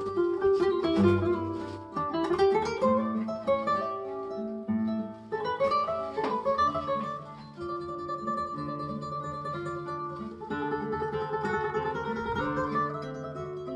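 Guitar music with quick runs of plucked notes over a held bass line, played back through JBL 4309 bookshelf speakers driven by a JBL SA750 streaming amplifier.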